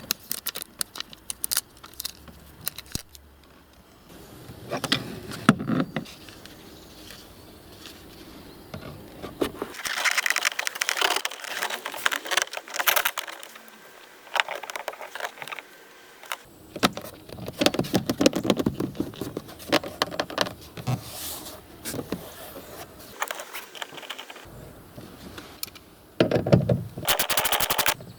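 Intermittent clicks, rattles and scraping of hand tools and car interior parts being handled, with a few longer stretches of rustling or scraping.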